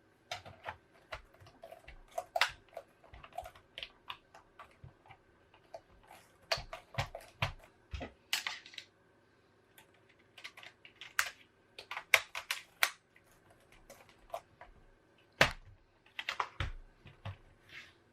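Irregular sharp plastic clicks and taps, with a few louder knocks, as a Toshiba Tecra R840 laptop's keyboard is fitted and screwed down. A faint steady hum runs underneath.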